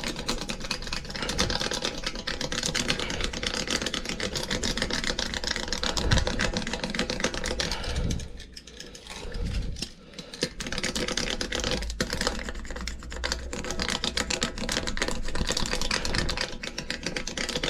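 A tire patch being pressed onto the inside of a tire, most likely rolled down with a toothed stitcher tool: rapid, dense clicking and rattling, with a short lull about eight seconds in.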